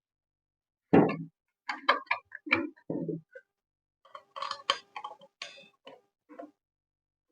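Irregular short clicks, knocks and rattles of handling a boxed circular saw and its plastic and cardboard packaging, in two bunches with short gaps between them.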